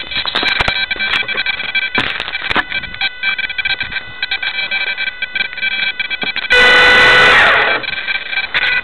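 Micro T-28 Trojan's small electric motor and propeller whining steadily, with clicks of fingers handling the airframe close to the microphone. About six and a half seconds in the motor is throttled up loud for about a second, then winds down in a falling whine.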